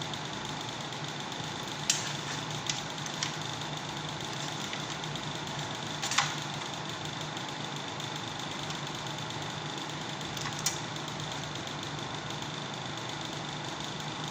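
Steady hum with a thin high whine over it, broken by a handful of sharp clicks and taps, the loudest about six seconds in, typical of small parts being handled during the work on an air-conditioner control board.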